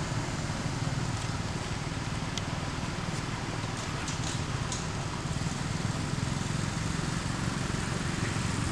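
Steady outdoor background rumble and hiss, with a few faint ticks about two to five seconds in.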